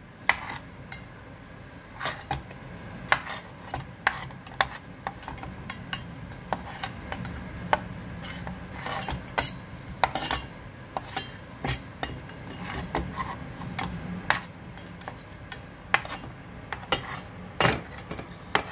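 A kitchen knife cutting peeled tomatoes inside a stainless-steel pot, the blade striking the pot's bottom and sides in irregular sharp clinks, several a second, over a low steady hum.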